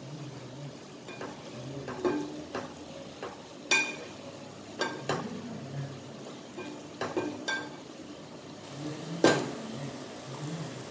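A wooden spatula stirs chicken pieces in a metal pot, scraping and knocking against the pot's sides. The knocks come at irregular intervals, each with a short ringing clang, the loudest a little after 9 seconds in. A low sizzle of frying runs underneath.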